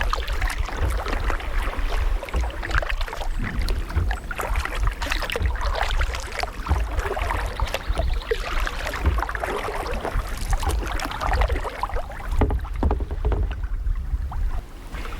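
Kayak paddling: paddle blades dipping and splashing, with water dripping and lapping in a steady run of small splashes and clicks. Under it runs a steady low rumble of wind on the microphone.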